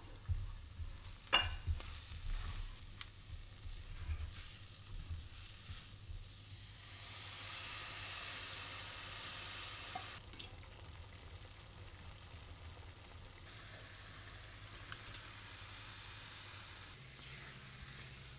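Spatula stirring spices into an onion paste in a stainless steel frying pan, with scrapes and a sharp knock about a second in. About seven seconds in, half a cup of water is poured into the hot pan and sizzles steadily for a few seconds. Later, chicken pieces are mixed into the sauce with more scraping and stirring.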